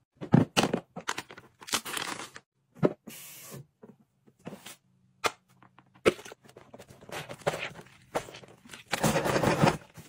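A string of short household cleaning noises cut together: clicks, scrapes and swishes from a fridge's kick panel being handled and an O-Cedar spin mop on a wood-look floor, with a longer rushing sound near the end as the mop works in its spin bucket.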